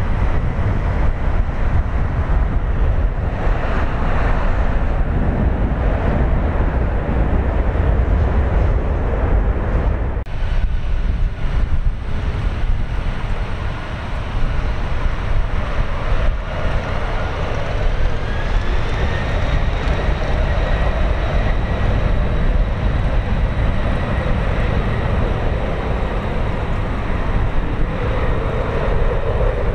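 Jet airliner engine noise: a loud, steady low rumble with a thin whine that climbs a little in pitch a little past halfway, then holds.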